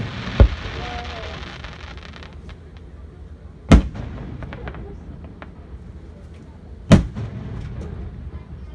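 Aerial fireworks shells bursting: three heavy booms about three seconds apart, with light crackling between them.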